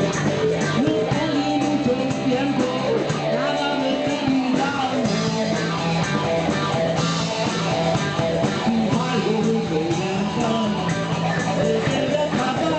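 A blues-rock band playing: guitar lines over a steady, repeating bass line.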